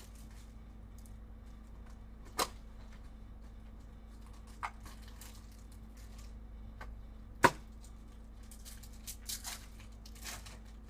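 A Bowman Chrome mini box and its foil card packs being opened by hand: a few sharp snaps and tearing sounds of cardboard and wrapper, the loudest about seven and a half seconds in.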